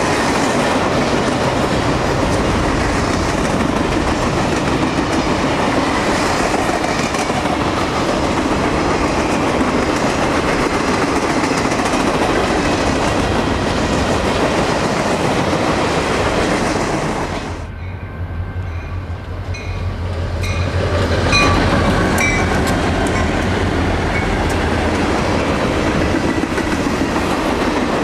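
Freight train cars rolling past close by: a steady loud rumble and clatter of wheels over the rails. A little over halfway through the noise drops off abruptly, leaving a low steady drone with a few brief high wheel squeals, and then the rolling rumble builds up again.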